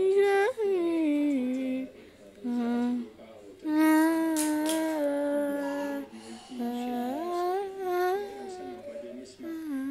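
A person's voice humming a wordless tune, holding notes about a second each and sliding up and down between them.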